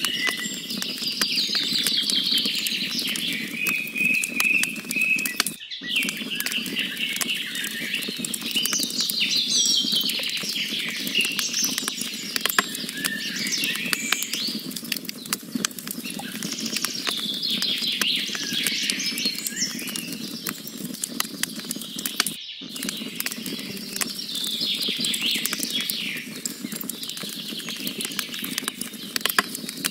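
Wood campfire crackling, with dense small pops and snaps over the hiss of the flames, and birds chirping and trilling over it. The sound cuts out for an instant twice.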